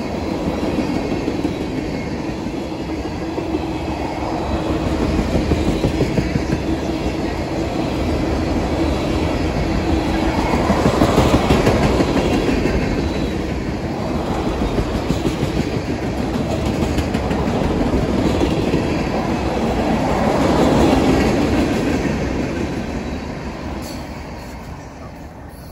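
Freight train of tank cars rolling past, steel wheels running on the rails, the noise swelling as cars go by. It fades away near the end as the last car passes.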